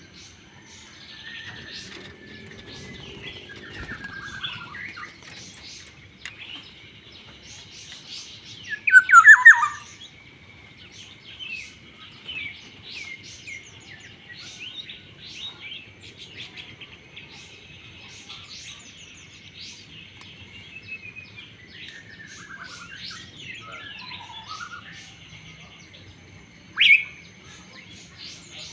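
Black-naped oriole (kepodang) calling among other birdsong: scattered chirps and whistles, a loud falling call about nine seconds in, and a short sharp call near the end.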